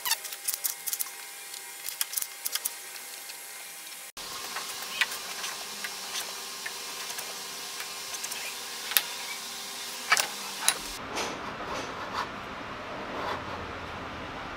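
Hand planing with a metal block plane: short, separate scraping strokes as the blade takes shavings off small wooden pieces, with occasional knocks of the plane on the wood and the bench.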